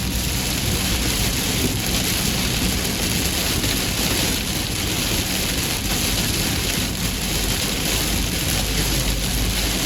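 Heavy rain pouring down steadily, a dense even hiss with a low rumble beneath it.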